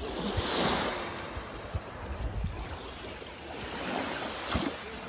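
Small waves lapping and washing on a sandy shore, with wind buffeting the microphone.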